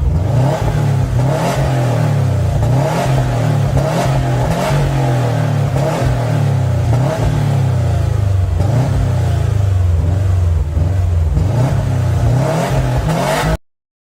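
A supercar engine revved again and again in short blips, its pitch rising and falling several times, with sharp cracks scattered through it. It stops abruptly near the end.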